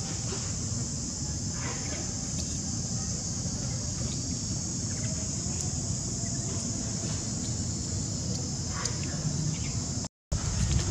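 A steady, high-pitched insect chorus drones on over a low rumble, with a few faint clicks; the sound breaks off for a moment near the end.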